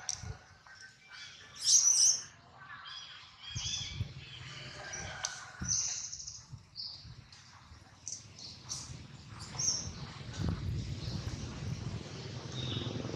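A string of short, high-pitched chirping calls, one after another, the loudest about two seconds in, with a few low rumbles between them.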